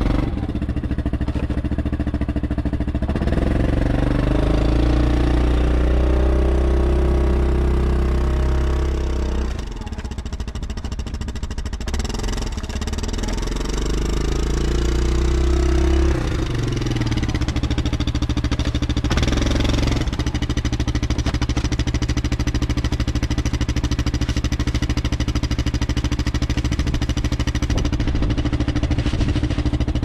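Yamaha Grizzly ATV fitted with snow tracks, its engine revving hard under load in two long pushes as it works through deep snow, then running steadily at an even pitch from about halfway on.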